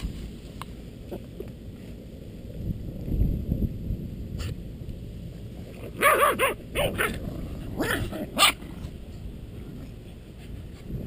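Puppies yipping and barking in short bursts, a cluster about six seconds in and two more near eight seconds, over a low wind rumble on the microphone.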